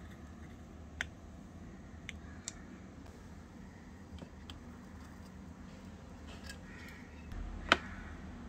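Scattered light clicks and taps from a tiny steel kadai and utensils being handled, with one sharp metal knock near the end, the loudest sound, as the small pan is set onto the miniature stove.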